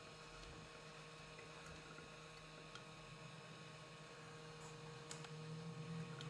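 Faint steady electrical hum with a low hiss, and a couple of faint ticks about five seconds in; the hum grows a little stronger near the end.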